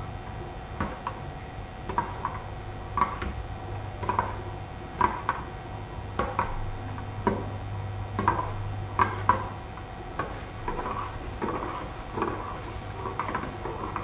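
A metal spoon stirring a wet mixture in a steel plate, tapping and scraping against the metal about once a second.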